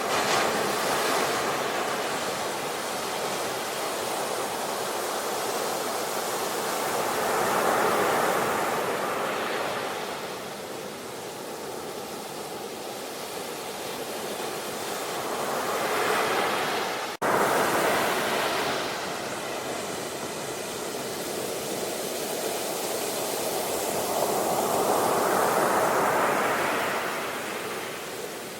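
Sea waves washing ashore, a steady rush of surf that swells and recedes every several seconds. There is a momentary dropout about two-thirds of the way through.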